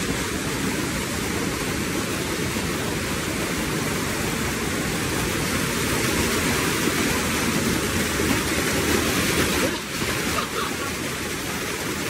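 White water cascading down a smooth rock chute in a small waterfall: a steady, full rush with a brief dip about ten seconds in.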